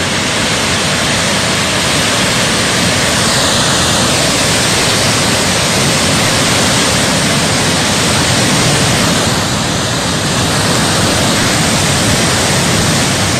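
Muddy floodwater and landslide debris rushing down a hillside in one loud, steady, unbroken rush of noise.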